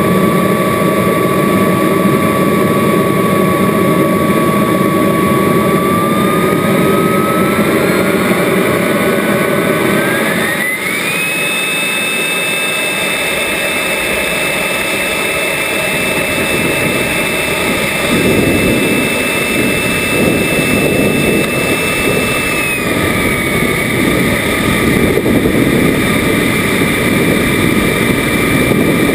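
Whine of a radio-controlled Rafale model jet's engine, recorded on board: steady at first, it rises in pitch over about five seconds as the throttle is opened and is then held high, easing slightly lower about 23 seconds in. A rushing of air grows under it from about 18 seconds in.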